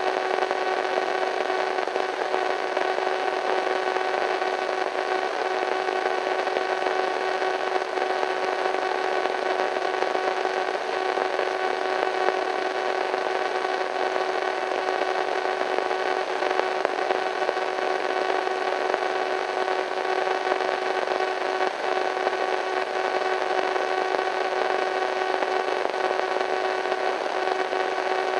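Radio static, a slightly eerie white-noise hiss with a steady hum of several fixed tones running through it, unchanging.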